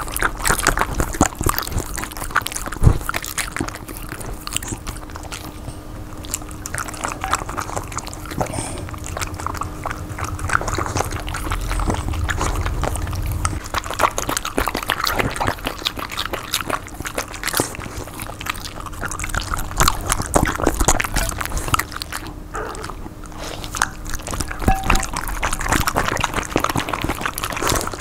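Dogs licking, lapping and chewing wet, saucy food from bowls: a dense run of small wet clicks, smacks and slurps.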